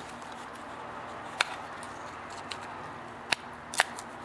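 Flat screwdriver prying a gasket-stuck plastic part off an aluminium carburetor body, giving a few sharp clicks, the last two close together near the end.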